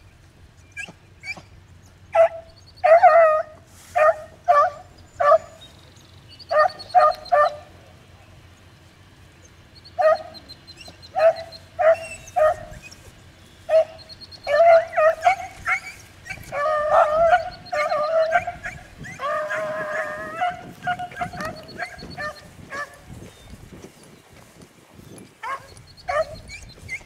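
Beagles giving tongue as they work a rabbit's scent line: bursts of short, repeated barks that run into longer, drawn-out bays about halfway through.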